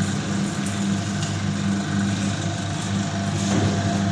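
Electric sugarcane juice machine running with a steady motor hum while cane stalks pass through its crushing rollers.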